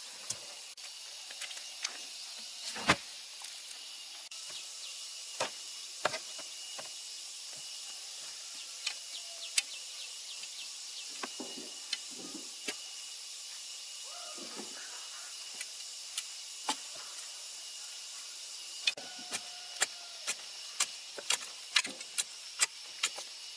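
Irregular sharp clicks and snaps, sparse at first and coming about twice a second in the last few seconds, over a steady high-pitched outdoor hiss.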